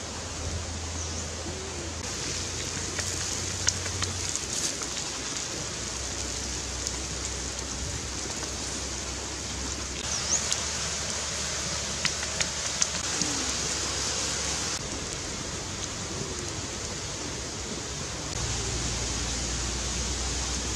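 Shrimp sizzling in oil on a hot stone slab over a wood fire: a steady frying hiss, broken by a few sharp pops.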